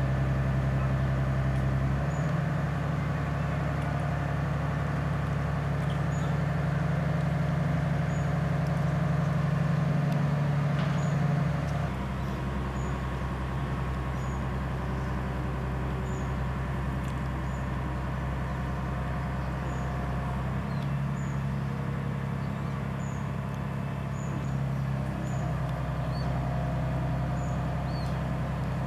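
Diesel engine of a mobile crane running steadily while it holds and positions a bridge span. Its note steps up about two seconds in and falls back near twelve seconds, then rises and falls again later as the engine speed changes.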